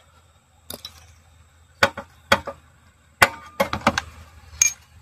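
Sharp knocks and clinks of tools and engine parts being handled under a car's hood, a handful of separate hits with a quick run of them a little past halfway.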